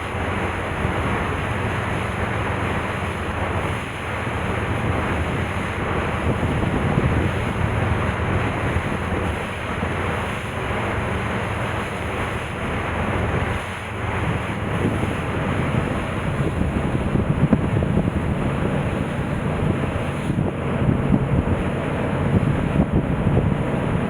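Strong wind buffeting the microphone on the deck of a moving car ferry, rising and falling in gusts over the rush of sea water along the hull.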